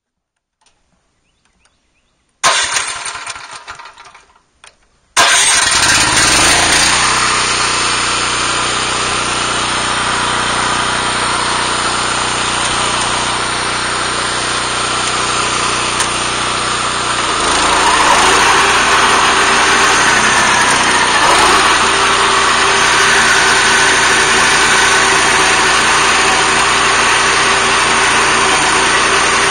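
A BCS walk-behind tractor's gasoline engine being started: a first try fires briefly and dies away, then it catches about five seconds in and runs steadily. It gets louder around seventeen seconds in as the tractor drives its 40-inch Zanon finish mower.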